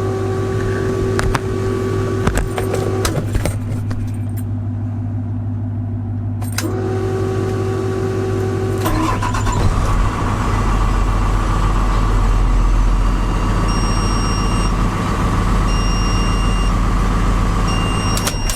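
A vehicle engine running steadily; about halfway through its low rumble grows heavier. In the last few seconds a high electronic chime beeps on and off in roughly one-second tones.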